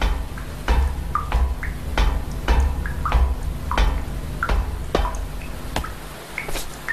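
Water dripping in irregular single drops, each a short plink, over a low pulsing rumble that drops away about six seconds in.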